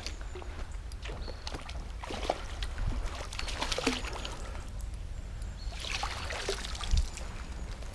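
Water splashing and sloshing in irregular bursts as a hooked chub thrashes at the surface and is scooped up in a landing net. There is a dull knock near the end.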